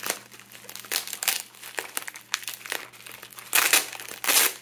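Bubble-wrap pouch crinkling and crackling as hands squeeze and pull it open, with two longer, louder rustles near the end.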